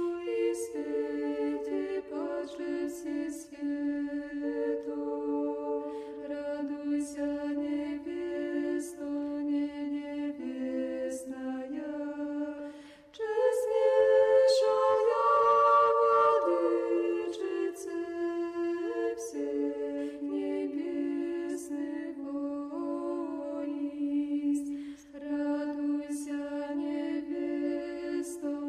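Background music: an unaccompanied choir singing a slow chant in several parts, in long held notes. It swells louder about halfway through after a brief pause.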